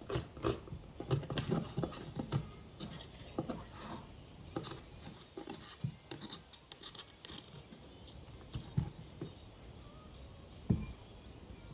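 Knife blade scraping and picking at pressed eyeshadow in a palette pan: a run of irregular, scratchy clicks that thin out after a few seconds, with one duller knock near the end.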